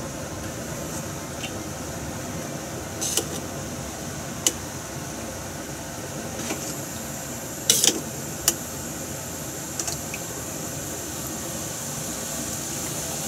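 Steady hiss of kitchen background noise, with a few light clicks and knocks scattered through it; the loudest is a quick pair of knocks about eight seconds in.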